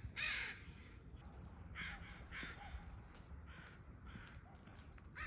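A crow cawing: one loud harsh caw at the start, then a run of about six fainter caws, roughly two a second, fading away.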